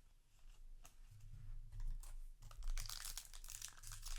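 Foil booster-pack wrapper and trading cards being handled: quick crinkling crackles, faint at first and turning dense and louder about two seconds in.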